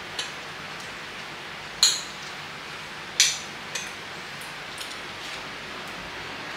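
Forks clinking against ceramic plates: a few sharp, separate clinks, the loudest just under two seconds and just over three seconds in, with fainter ones later, over a steady low hiss.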